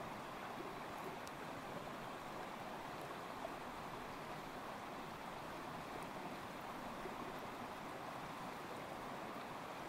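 Steady rush of a flowing limestone stream.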